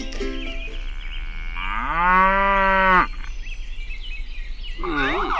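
A cow mooing: one long moo, about a second and a half, that rises in pitch, holds, and cuts off suddenly.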